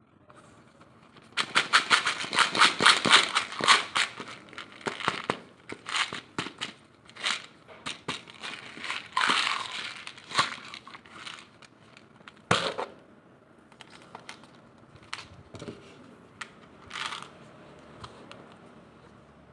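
Packaging wrapper being crinkled and torn open by hand, with a dense run of crackling at first, then scattered crinkles and a longer tearing rasp. A single sharp knock comes about twelve seconds in.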